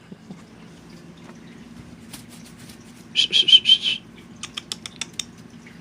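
A squeaky dog toy squeezed about five times in quick succession, each squeak high and steady in pitch. A quick run of light clicks follows.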